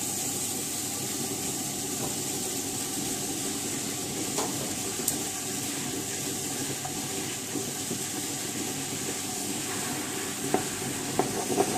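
Tabletop wet grinder running steadily, its stone rollers turning in the steel drum and grinding soaked rice and cucumber pieces into batter, with a few faint knocks.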